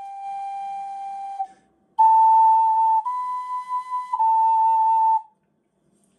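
Ocarina playing a slow pitch exercise. One soft held note, a short pause, then three louder held notes of about a second each, stepping up, up again and back down (la–ti–la). The playing stops about five seconds in.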